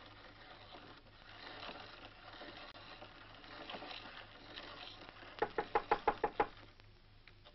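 A quick run of knocks on a door, about nine in a second, starting a little over five seconds in.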